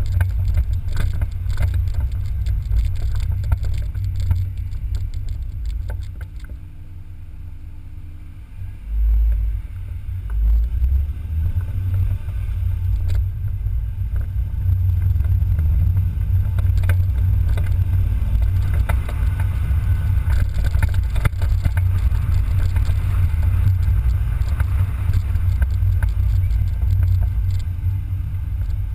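Low rumble of a BMW Z3 on the move, heard from a camera mounted on its front end: engine, road and wind noise with frequent short rattles and knocks from the camera mount. The rumble dips for a couple of seconds about a quarter of the way in, then swells again.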